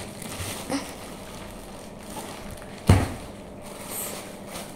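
Clear polythene wrapper rustling and crinkling as it is handled, with one sharp thump about three seconds in.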